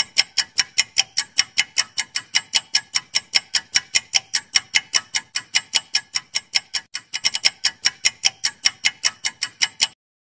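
Countdown-timer sound effect: sharp, clock-like ticks about five a second, with a brief skip and a quicker run of ticks about seven seconds in, stopping suddenly near the end.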